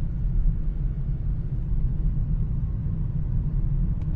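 Steady low rumble of a car in motion heard inside the cabin, engine and tyres on a wet road, with a faint even hiss above it.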